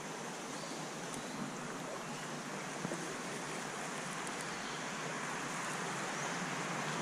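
Steady rush of flowing creek water, growing slightly louder toward the end.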